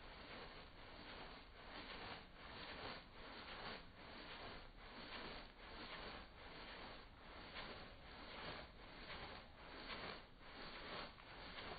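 Faint, quick swishing strokes, about two to three a second, from a spice shaker being shaken to sprinkle dry rub over a pork butt.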